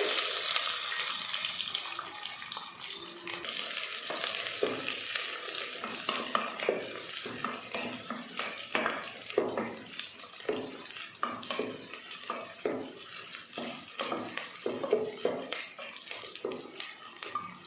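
Small onions (shallots) frying in hot sesame oil. A loud sizzle at first fades over the first few seconds, and a utensil stirring and scraping against the pan makes repeated short strokes throughout.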